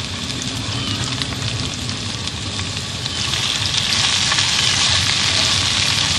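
Sliced bell peppers and onions sizzling in hot grapeseed oil in a cast iron skillet. The sizzle grows louder about three seconds in, as a wooden spatula stirs the vegetables.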